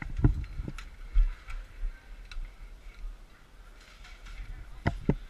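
A few sharp, irregular clicks and knocks. Several come in the first second, and a close pair comes near the end.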